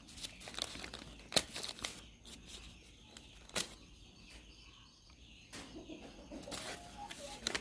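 Takeaway gado-gado wrapping being opened by hand: quiet rustling and crinkling with a few sharp clicks, two of them standing out.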